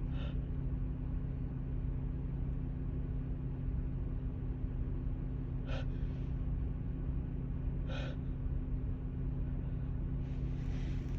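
A woman with a cold catching her breath in short, sharp gasping inhalations, three of them (near the start, about six seconds in and about eight seconds in), then softer breathing near the end as a sneeze builds. A steady low hum runs underneath.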